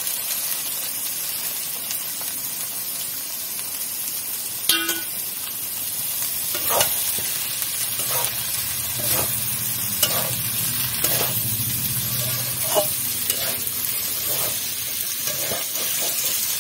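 Chopped green figs and potato pieces frying in oil and spice paste in an aluminium kadai, sizzling steadily while a metal spatula stirs them with repeated scrapes against the pan and a sharp clink about five seconds in.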